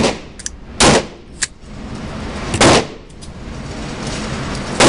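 Semi-automatic AR-15-type rifle (DPMS Oracle in 5.56×45/.223) firing single shots: four loud, echoing shots spaced irregularly a second or two apart, with a couple of fainter cracks in between.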